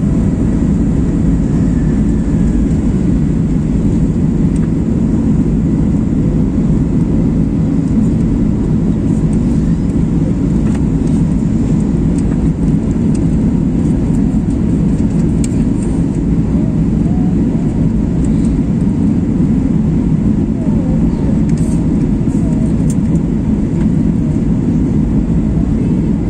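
Steady cabin noise inside a jet airliner on descent: engines and air rushing past the fuselage, a constant low rumble with no change in level.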